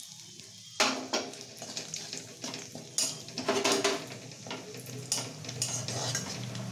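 A long metal spatula stirs and scrapes around a steel karai. Whole garam masala spices sizzle in the hot oil. The sharp scrapes and clinks of the spatula against the pan start suddenly about a second in and come irregularly over the sizzling.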